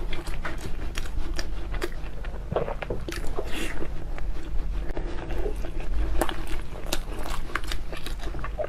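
Close-miked eating: biting and chewing with many short, sharp wet mouth clicks and smacks.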